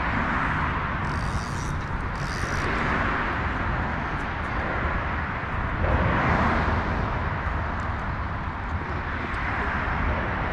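Steady drone of autobahn traffic, swelling about six seconds in as it grows louder for a moment.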